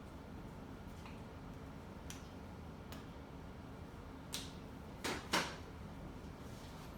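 A few sharp clicks and knocks over a low steady hum. They are faint and spaced about a second apart at first, then louder, ending in a close double knock about five seconds in.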